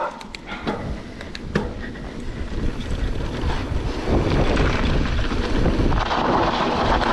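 Wind rushing over the microphone during a fast mountain-bike descent, with a few sharp clicks and rattles from the bike in the first second and a half. The rush grows louder about four seconds in.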